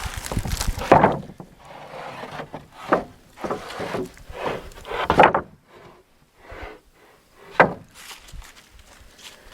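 Sawn wooden boards being set down and slid onto a stack: several hollow wood-on-wood knocks with scraping between them.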